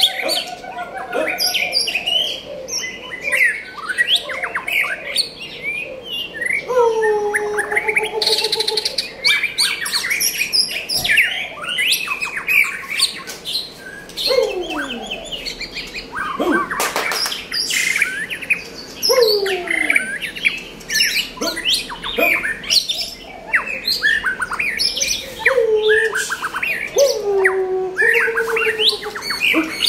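White-rumped shama singing a varied song of whistled phrases and chirps, including low whistles that slide down in pitch, phrase after phrase with short gaps.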